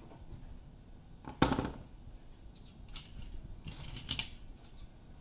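A flush cutter and a diecast toy car being set down on a cutting mat: one sharp knock about a second and a half in, then a few lighter clicks and rustles between three and four seconds in.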